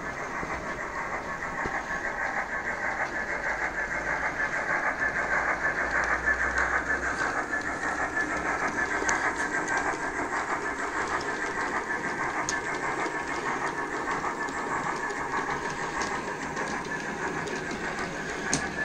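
OO gauge model trains running on the track: a steady mechanical whirr of small electric motors and wheels on the rails, a little louder in the middle, with a sharp click near the end.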